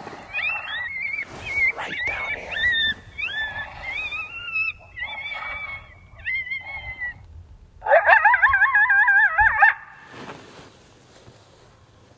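Electronic predator caller playing prey-animal distress sounds: a run of short, high, rising squeaks and chirps, then about eight seconds in a loud wavering squeal that cuts off sharply, used to lure coyotes.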